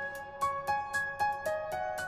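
Background music: a gentle melody of single ringing notes, about four a second.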